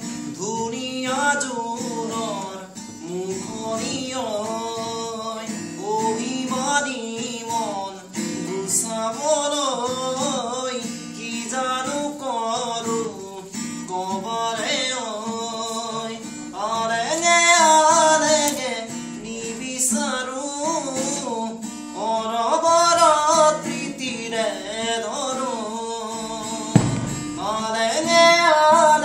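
Acoustic guitar strummed with a man singing along, the voice carrying a wavering melody, its louder phrases coming about halfway through and near the end.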